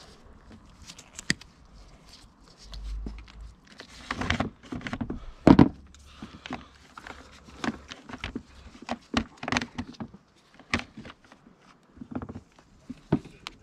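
Hand work on an ATV handlebar: scattered clicks, rustles and knocks as the old left heated grip is cut free and taken off, with one louder knock about five and a half seconds in.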